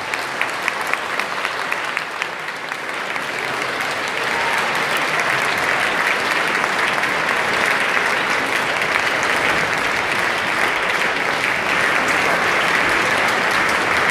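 Concert-hall audience applauding, with sharp claps close by at first; the applause swells about four seconds in and stays full.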